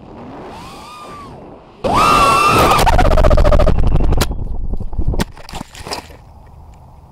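The brushless motors (Emax RS2205 2600 kV) of an FPV racing quadcopter, heard through its onboard camera: a whine that swoops up and down, then about two seconds in a sudden loud, steady high whine at full throttle. Sharp knocks follow as the quad tumbles into the grass and crashes, leaving only a faint hiss.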